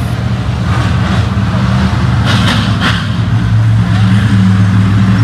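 A pack of dirt modified race cars running around the track, their V8 engines making a steady low drone that swells louder toward the end.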